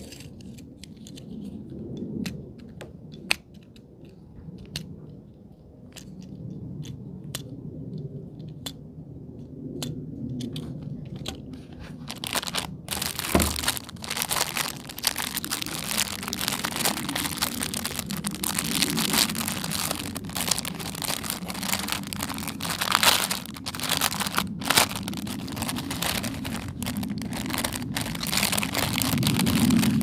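Scattered light clicks and taps from handling plastic fidget toys, then, about twelve seconds in, dense crinkling and tearing of plastic packaging that continues to the end.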